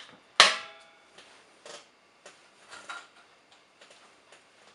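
Metal spring-clip latch on an ash vacuum's stainless steel drum snapping shut with one sharp click and a brief metallic ring about half a second in, locking the motor head onto the drum. A few faint clicks and taps follow.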